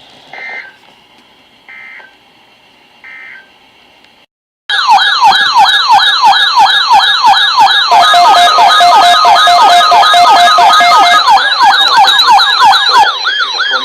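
Three short data bursts of a NOAA Weather Radio SAME alert header. After a brief dead gap, a weather radio's loud warbling siren alarm sweeps up and down about three times a second, with a steady tone beneath it for a few seconds in the middle. It is the alert for a newly issued tornado warning.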